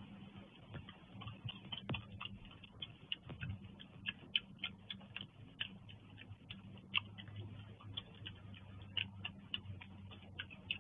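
White-nosed coati chewing fruit: a run of irregular sharp clicks and smacks, busier from about four seconds in, over a steady low hum.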